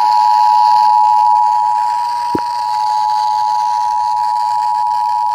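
Emergency Alert System attention signal from a broadcast receiver: a steady, loud two-tone alert held without a break. A single short click sounds about two and a half seconds in.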